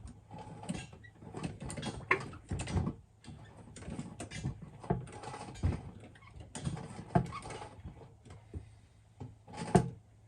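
Irregular knocking and clattering from a lever-action bucket pump being worked and shifted in a nearly empty 5-gallon oil bucket, as its pickup is lifted off the bottom. The loudest knock comes near the end.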